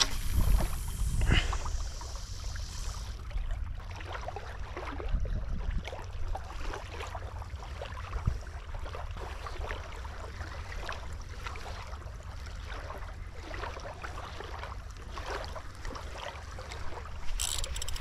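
Wind buffeting the microphone, with small waves lapping at the shoreline and scattered clicks and rustles. For about the first three seconds a high hiss: fishing line running off a spinning reel as the lure flies out on a cast.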